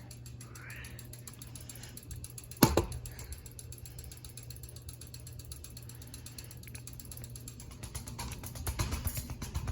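Hunter Westminster ceiling fan running at medium speed: a steady motor hum with a fast, even mechanical clicking. One sharp knock comes about two and a half seconds in, and louder rattling comes near the end.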